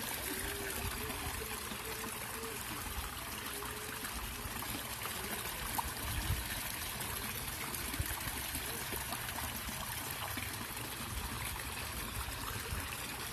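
Water from an inlet pipe falling into a fish pond, a steady splashing trickle.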